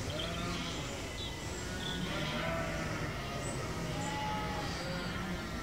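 Sheep bleating, with small high chirps over a steady low background.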